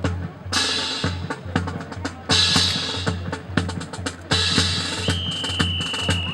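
Drum cadence on snare and bass drums, a quick run of sharp strokes with a cymbal-like crash about every two seconds, accompanying a rifle drill display. A single held high tone sounds for about a second near the end.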